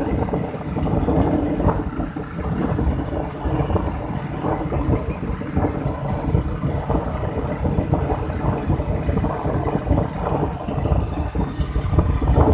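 Steady engine and road noise of a moving vehicle on the road.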